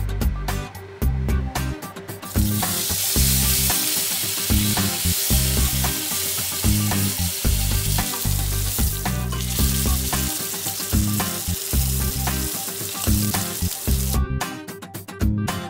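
Slice of tuna sizzling as it sears in hot oil in a pan, over background music. The sizzle starts about two seconds in and cuts off shortly before the end.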